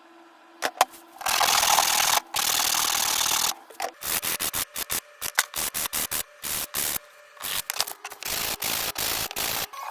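Sandpaper rubbing on small walnut blocks: a few light clicks, then two long sanding strokes, then a quick run of short back-and-forth strokes.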